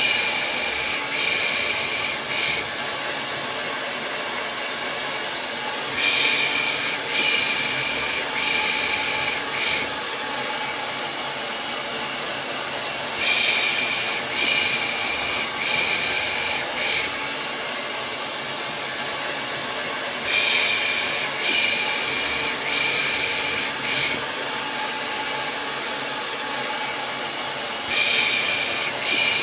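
Hair dryer blowing steadily, with soft 'pış pış' shushes (the Turkish hush used to settle a baby) laid over it in groups of about four every seven seconds.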